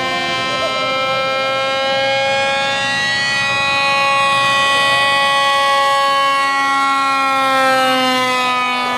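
Motors and propellers of radio-controlled model aircraft running steadily, a hum of several pitches that drifts slowly up and down as the planes fly around.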